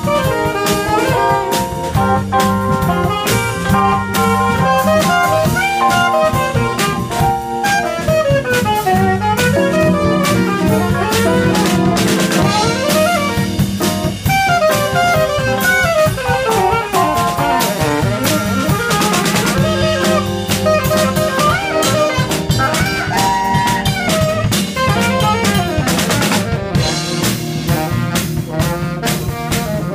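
Small jazz group playing live: a saxophone runs quick melodic lines over a drum kit, with the cymbals going busily throughout.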